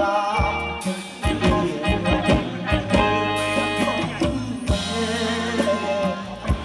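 Live band playing Thai ramwong dance music, with a regular drum beat, bass and electric guitar under a man singing into a microphone.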